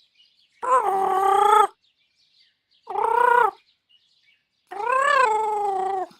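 Three cute-robot droid vocalizations expressing crossness: short synthesized whining calls with a wavering pitch. The last and longest one rises and then falls.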